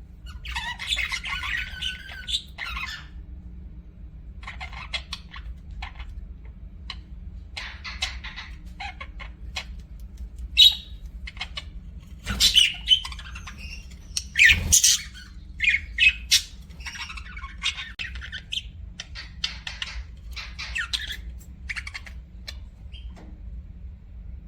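Pet budgerigars chattering and squawking in short, irregular bursts, with a run of louder, sharper squawks a little past halfway. A faint steady low hum runs underneath.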